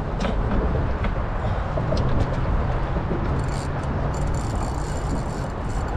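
Steady low mechanical rumble with wind and water noise while a black drum is being fought on a bent rod, with a high rasping buzz for about two seconds in the middle.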